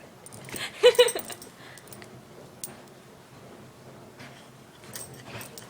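Puppies play-fighting: a pair of short, high yelps about a second in, then a few faint clicks and scuffles.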